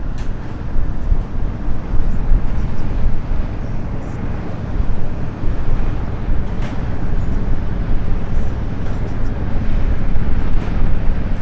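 Wind rumbling on the microphone: a loud, uneven low rumble that swells and dips in gusts, with no steady engine tone in it.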